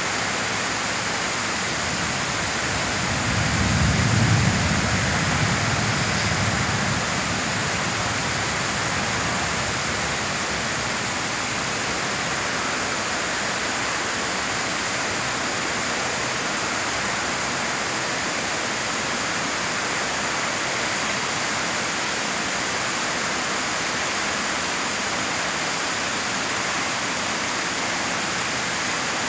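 Heavy rain falling in a steady, even hiss. About three seconds in, a low rumble swells for a few seconds and fades back into the rain.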